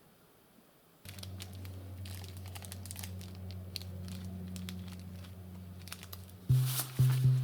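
Crinkling and rustling with scattered small clicks over a low steady hum. Loud background music with a stepping bass line comes in near the end.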